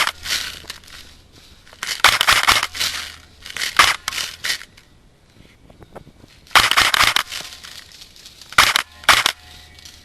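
Irregular bursts of crunching and rustling, about six in all, from a player moving on foot.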